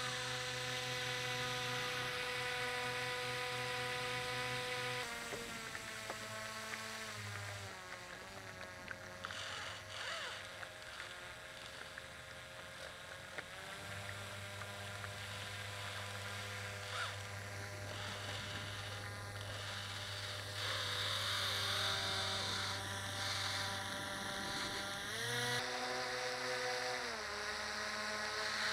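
The small motor of a radio-controlled rescue boat running with a steady whine, heard close up from a camera mounted on the boat. Its pitch steps down and up several times as the throttle changes.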